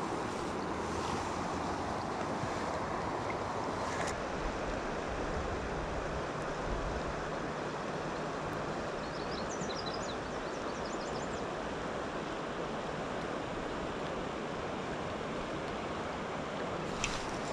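Steady rush of river water flowing over a shallow, rocky riffle, with a few faint high chirps about ten seconds in.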